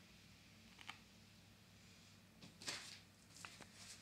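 Near silence: a steady low room hum with a few faint clicks and one brief rustle about two and a half seconds in.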